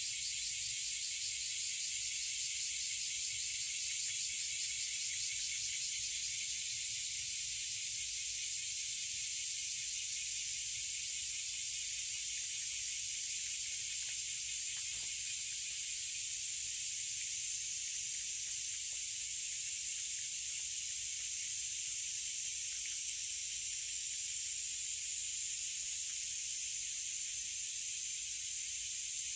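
Summer cicada chorus: a steady, dense, high-pitched hiss that holds unchanged throughout.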